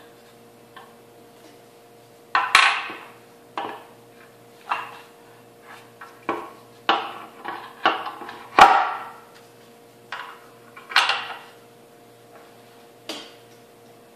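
A centrifuge's conical rotor head is worked by hand onto its motor shaft, making a run of irregular knocks and clunks, the loudest about two and a half, eight and a half and eleven seconds in. A faint steady hum lies underneath.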